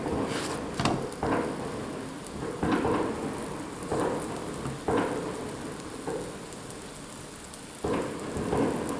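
Oil sizzling under a sugar-filled flatbread in a hot, oiled griddle pan just after it has been turned over, a steady crackling hiss that swells suddenly several times.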